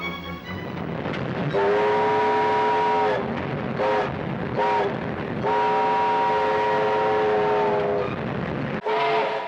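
Steam locomotive whistle with several notes sounding together, blowing a long blast, a short one and another long one over the noise of the moving train, the end of a long-long-short-long grade-crossing signal. Near the end the sound cuts off suddenly and another whistle starts.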